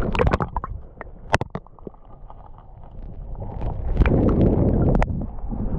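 Water sounds through a submerged camera's waterproof housing in shallow water: a run of sharp clicks and knocks in the first second and a half. From about three and a half seconds in, a louder sloshing rush follows as the camera comes up through the surface, with one sharp click near the end.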